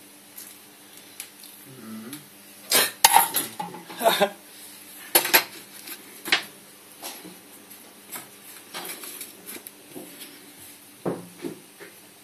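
A metal cooking pot clattering and clinking as it is handled and set down: a quick run of sharp clacks about three seconds in, two more single clacks soon after, then light clicks.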